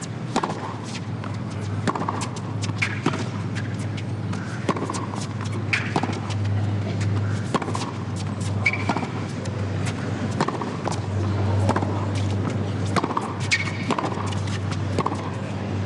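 Tennis rally: sharp racquet-on-ball hits about once a second, trading back and forth, over a steady low hum.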